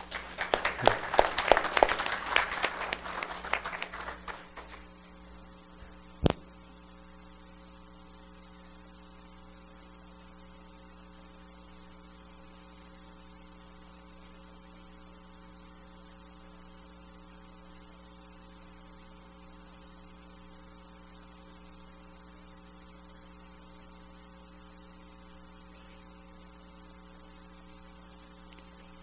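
Applause, a dense patter of clapping that fades out after about four seconds. A single sharp click about two seconds later, then a steady electrical hum with several fixed tones for the rest.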